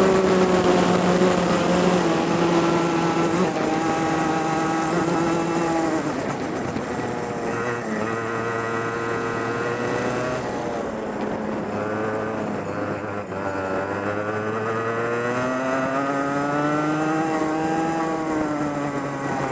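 Racing kart engine heard from on board at speed. Its pitch drops under braking, about six seconds in and again around twelve seconds, and climbs back as it accelerates out of the corners.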